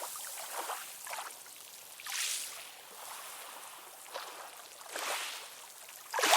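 Ocean waves washing in: a small wave swells and fades about two seconds in, another near five seconds, and a louder wave breaks at the very end.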